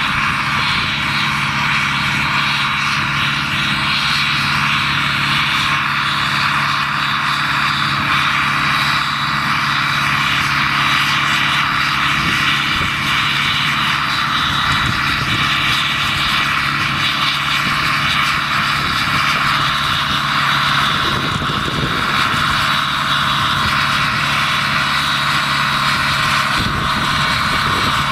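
Diesel engine of a narrow-gauge peat railway locomotive running steadily as it hauls a loaded train of peat wagons.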